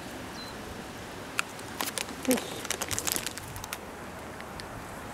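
An empty plastic dog-treat packet being handled, crinkling and crackling in a quick run of sharp clicks for about two seconds, with a brief low voice-like sound in the middle.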